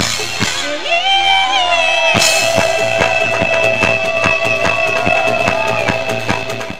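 Live band music with a drum kit keeping a steady beat under a long held high note that bends at first, then holds for about five seconds, with a crash about two seconds in.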